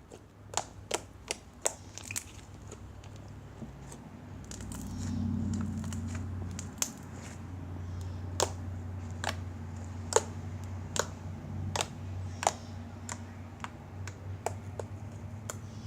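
Pink glitter glue slime being poked, stretched and squished by hand, giving scattered small clicks and pops at irregular intervals over a faint low hum.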